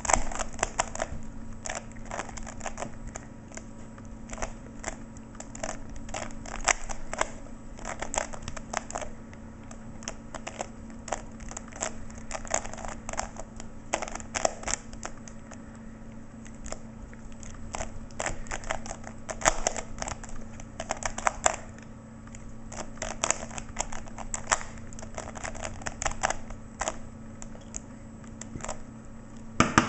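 Rubik's Cube being turned quickly by hand: a rapid, irregular run of plastic clicks and clacks as the layers rotate, coming in quick flurries with short pauses between them.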